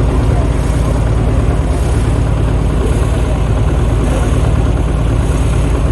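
Vintage tractor engine running steadily, a deep low hum with an even level throughout.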